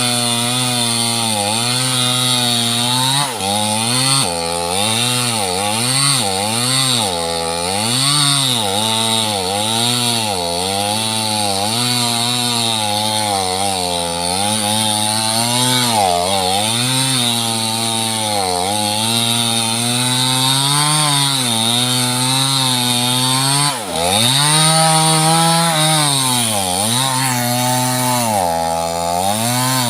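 Small two-stroke chainsaw cutting sengon (albizia) wood at high revs, its engine pitch wavering up and down as the chain loads and frees in the cut. The pitch drops sharply and recovers twice, about three seconds in and again near the end.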